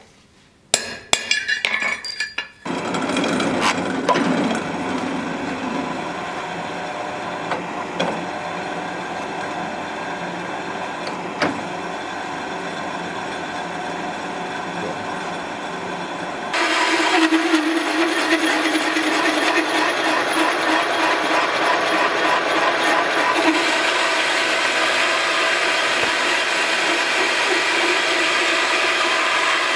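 A few sharp metal taps and scrapes of a scriber on a steel plate, then a drill press running steadily as it cuts into the steel plate. About 16 seconds in the sound becomes louder and higher-pitched as a larger cutter bores the plate.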